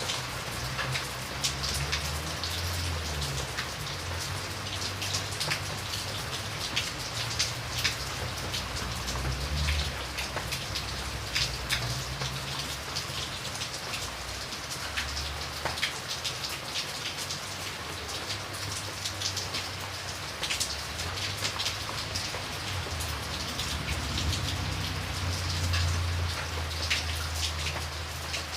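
Steady rain falling, with many individual drops ticking sharply on a surface. A low rumble comes and goes underneath, loudest near the end.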